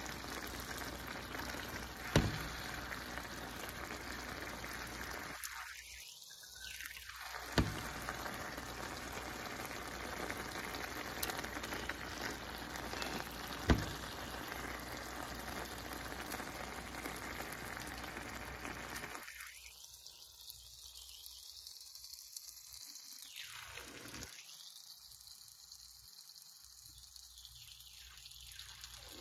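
Collard greens simmering in broth in a skillet: a steady sizzling bubble, with three sharp knocks of the stirring spoon against the pan about 2, 7½ and 14 seconds in. After about 19 seconds the sound drops to a quieter, thinner simmer.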